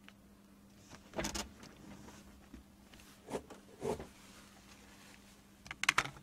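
Brief handling noises, short rustles and knocks about a second in and around three and four seconds, then a quick cluster of sharp clicks near the end, over a faint steady low hum.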